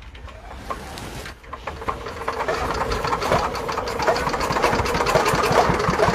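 Small diesel engine, belted to a chaff cutter, starting up: a rapid, even knocking begins about two seconds in and grows faster and louder.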